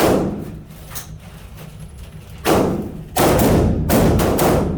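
Gunshots echoing in an indoor shooting range: one shot right at the start, another about two and a half seconds in, then several shots in quick succession.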